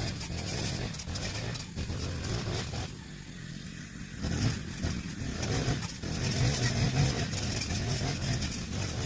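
Brush cutter fitted with a chainsaw-chain blade, its small engine running. The engine drops off briefly about three seconds in, then picks up and runs harder, rising and falling unevenly.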